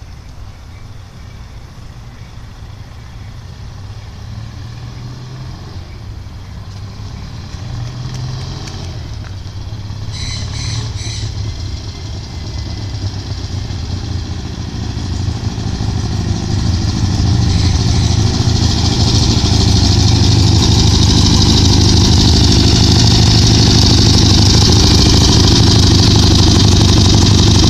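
A 1973 Harley-Davidson motorcycle engine heard from far down the road, growing steadily louder over about twenty seconds as the bike approaches, then running loud and steady close by. A short high chirping comes about ten seconds in.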